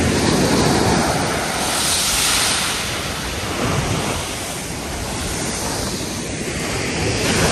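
Small sea waves breaking and washing up a sandy beach in a steady surf wash, swelling about two seconds in and easing by the middle.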